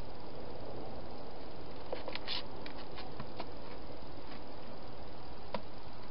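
Steady hiss with a quick run of small sharp clicks and taps about two seconds in and a single click near the end, from a hedgehog feeding and moving about inside a clear plastic feeding box with food bowls.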